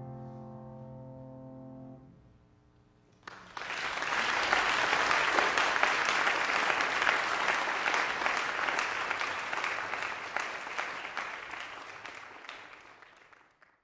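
The last chord of a grand piano solo rings and dies away; about three seconds in, a congregation breaks into applause, which holds steady and then dwindles near the end.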